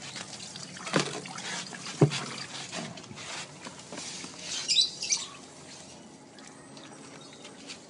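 Red plastic cat-litter tray knocked twice as it is picked up, then wet used litter sliding and spilling out of the tilted tray into a plastic basket, with a wet trickling.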